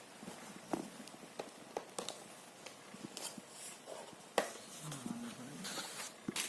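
Plastic parts of a piano-mat baby play gym being handled during assembly: scattered light clicks and taps, with a sharper knock a little after four seconds. A brief low voice-like sound comes about five seconds in.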